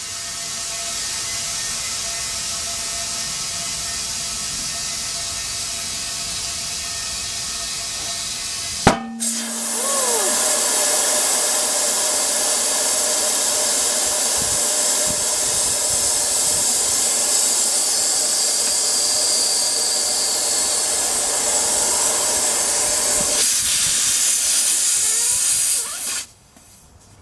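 Compressed air hissing steadily through an air chuck as a truck tire is filled. About nine seconds in there is a sharp click and the hiss grows louder. It cuts off shortly before the end.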